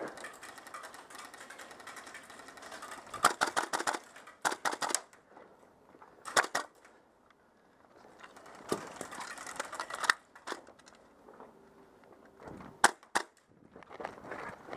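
Airsoft guns firing: several quick bursts of sharp, rapid clacks a couple of seconds apart, with a few single shots near the end.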